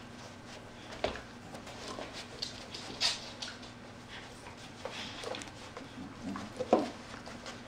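Pit bull-type dogs wrestling with each other: irregular short grunts, snuffles and scuffling sounds, with a sharp sound about a second in and the loudest one near the end.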